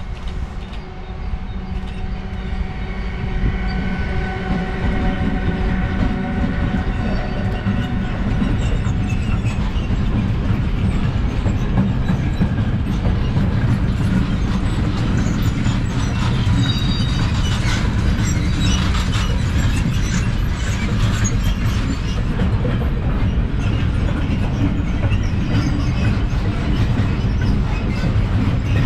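Freight train passing close by. A locomotive's steady whining tone comes first, then the wagons rumble and clatter over the rail joints, with a brief high wheel squeal near the middle.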